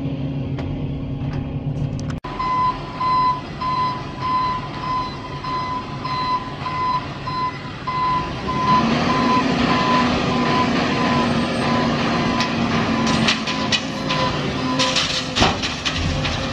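Heavy machine's backup alarm beeping at one steady pitch, about twice a second, over a diesel engine running. The engine note rises about halfway through, and a few sharp knocks come near the end.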